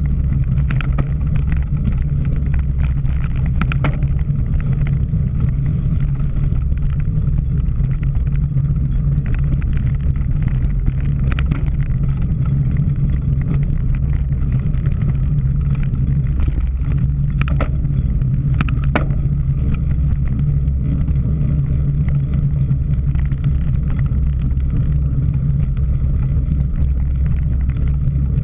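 Steady low rush of wind and tyre rumble picked up by a camera riding along on a cyclocross bike. A few sharp clicks and rattles, two close together a little past the middle.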